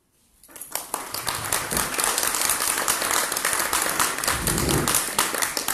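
Audience applause from many hands, starting about half a second in and quickly building to a steady, dense clapping that eases slightly near the end.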